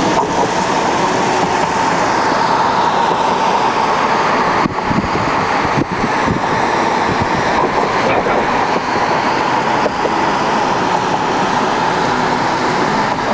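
Steady road and wind noise inside a moving car's cabin as it drives across a bridge in traffic.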